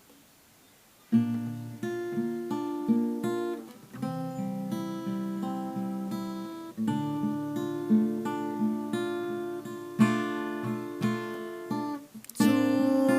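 Acoustic guitar playing the chord intro to a song, coming in about a second in.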